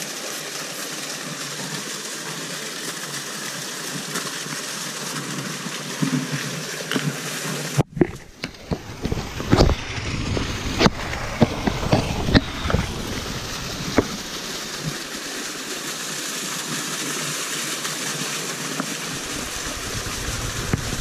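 Steady rush of a small mountain stream and waterfall. About eight seconds in, a string of sharp knocks and scuffs close to the microphone as someone climbs down over the rocks, which dies away after a few seconds.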